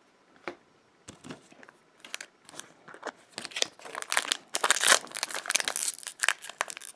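A foil Magic: The Gathering booster pack wrapper crinkling and tearing as it is pulled open by hand. It starts with a few faint crackles and becomes a dense, louder crinkle from about halfway in.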